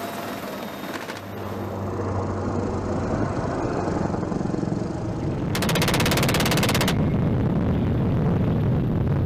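Helicopter rotor and engine noise running steadily, with one burst of very rapid gunfire from a helicopter-mounted Gatling-type gun, lasting just over a second, about halfway through.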